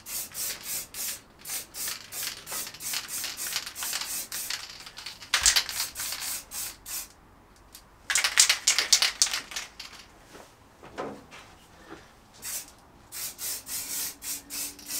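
Aerosol spray paint can being shaken, its mixing ball rattling about three to four times a second, with two bursts of spray hiss about five and eight seconds in. The rattling starts again near the end.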